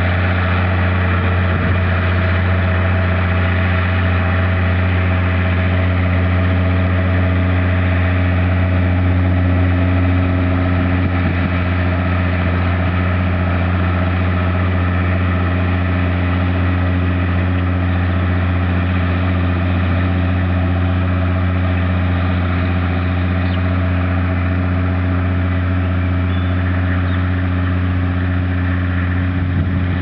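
Massey Ferguson 6170 tractor's diesel engine running steadily under load while pulling a reversible plough through the soil.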